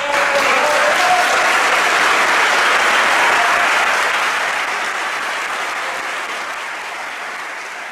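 Audience applauding: a burst of clapping that starts at once and slowly dies away over the last few seconds.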